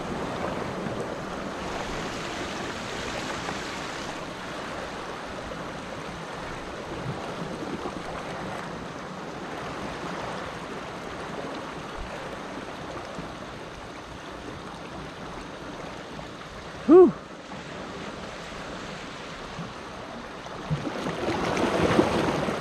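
Small waves washing and foaming against shoreline rocks: a steady hiss of surf that swells louder near the end. About three-quarters of the way through, one short pitched call rises and falls, the loudest sound.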